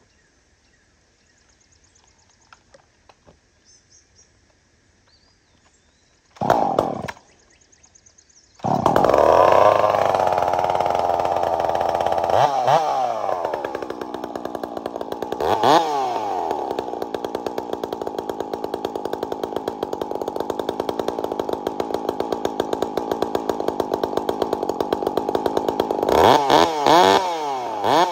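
Ported Husqvarna 359 two-stroke chainsaw being started: it fires briefly about six seconds in and dies, catches about two seconds later, and then runs steadily as it warms up, with short revs a couple of times and several more near the end.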